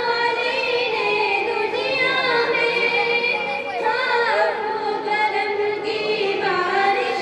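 Girls singing a tarana (an Urdu devotional song) together into a microphone, voices only, with long held and ornamented notes.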